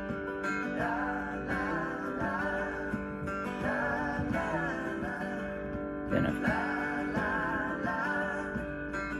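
Karaoke backing track playing an instrumental break: strummed acoustic guitar chords with a wavering melody line over them, in three phrases.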